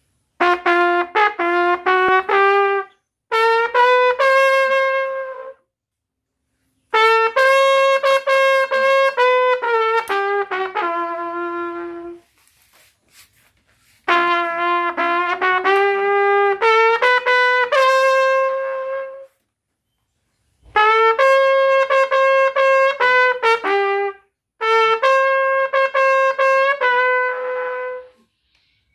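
A solo valveless brass bugle playing a melody, in six phrases of quick notes separated by short pauses.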